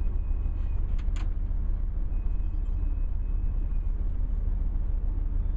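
Steady low engine and road rumble heard inside a moving tour bus, with two short clicks about a second in.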